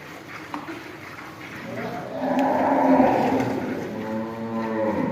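Cow mooing: one long, loud call beginning about two seconds in.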